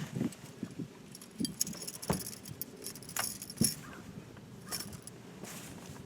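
Small metal objects jingling and clinking, with scattered sharp knocks and clicks; the jingling is busiest between about one and three and a half seconds in.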